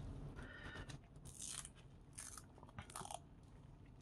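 Faint handling noise: three short crinkly rustles as gloved hands work a coiled copper earphone cable.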